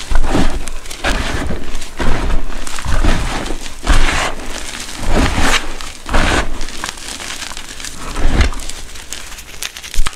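Hands squeezing and crushing powdered gym chalk in a tub: soft, squeaky crunches of packed powder, about one squeeze a second, with a sharper crunch near the end.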